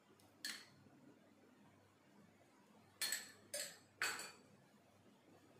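Kitchen utensils clinking: one short clink, then three more in quick succession about three seconds in.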